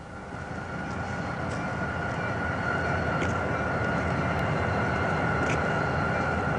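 Steady low rumble of a freight train in a rail yard, fading in over the first second, with a thin steady whine above it and a few faint clicks.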